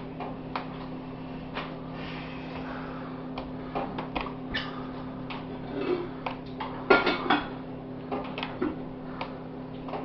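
Scattered clicks and light knocks with a louder clatter of several knocks about seven seconds in, over a steady low electrical hum.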